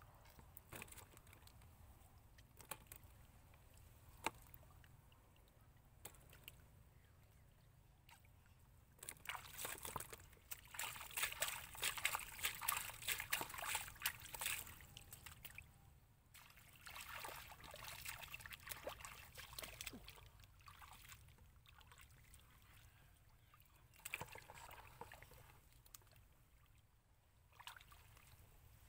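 Hands splashing and sloshing in shallow muddy water as fish are grabbed and rinsed, in bouts of busy splashing, the longest in the middle of the stretch, with quieter dripping between.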